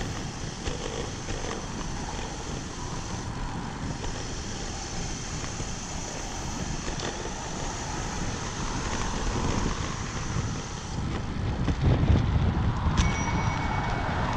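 Wind rushing over the microphone with the rolling noise of a road bike under way. The wind buffeting grows louder for the last few seconds.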